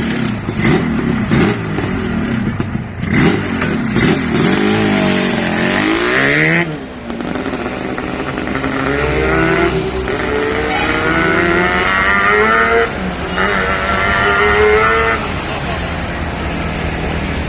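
Yamaha RD350 two-stroke twin engine in a Lambretta scooter, revved in quick blips for the first six seconds or so. It then pulls away, the pitch climbing in each gear with breaks at two or three gear changes, and runs quieter after the last one.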